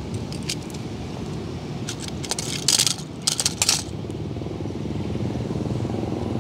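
Die-cast metal toy cars clinking and clattering against one another and a plastic basket, with a few light clicks early on and two louder clatters around the middle. A steady low rumble runs underneath.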